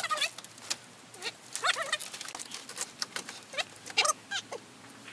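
Animal calls: about four short calls, each wavering up and down in pitch, spread over a few seconds among scattered light clicks and taps.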